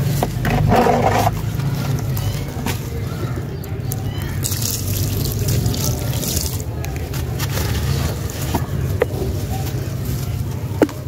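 Dry sand-cement and dirt crumbling through the hands into a tub. Then a thin stream of water is poured onto a chunk held in the hands, splashing and trickling for about two seconds near the middle. Wet mud lumps are crumbled near the end, with a few sharp clicks, over a steady low hum.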